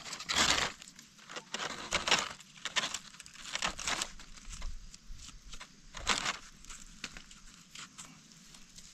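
Irregular rustling and scraping of dry leaf litter and soil as a knife digs a mushroom out of the ground and works at the dirt on its base, loudest just after the start and again about six seconds in.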